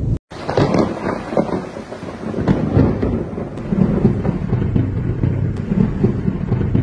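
Thunder from a tropical storm rumbling and crackling over steady rain. The sound drops out for an instant just at the start.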